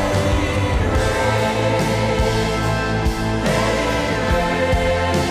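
Live Christian worship music: a band with piano and electric guitars playing, with singing, recorded from within the audience.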